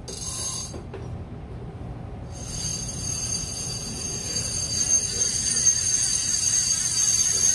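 Big-game fishing reel's clicker ratcheting as the spool turns, a rapid metallic rattle that gets louder about midway through. The clicker is being checked for loudness.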